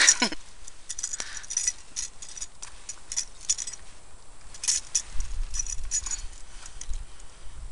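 Small metal parts of a buzz bait lure clinking and rattling in quick, irregular clicks as it is handled while a knot is tied to the line.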